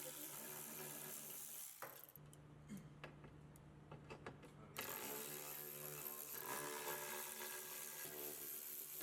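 Faint hand-tool clicks as the tunnel brace bolts are undone, a handful of short clicks in the middle, over a low steady hum.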